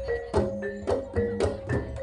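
Live jaranan gamelan music: sharp percussion strokes about twice a second over ringing pitched metal notes.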